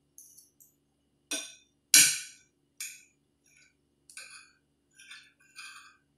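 Metal fork and spoon clinking and scraping against a ceramic plate while eating rice: a few sharp clinks, the loudest about two seconds in, then lighter taps and scrapes.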